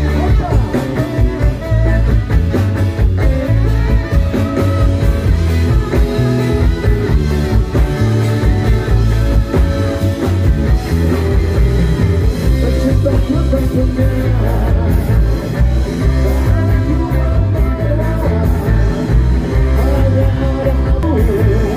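A live band playing a ska-rock song through a loud PA, with a driving bass and drum beat, electric guitars, saxophone and a singer.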